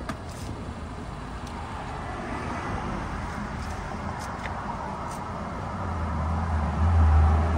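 A motor vehicle's engine running close by, growing much louder over the last couple of seconds, over a steady haze of outdoor traffic noise, with a few light clicks.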